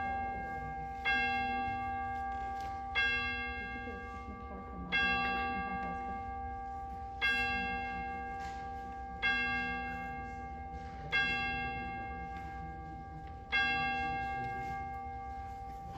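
A single church bell tolling at one pitch, struck seven times about every two seconds, each stroke ringing on and fading into the next.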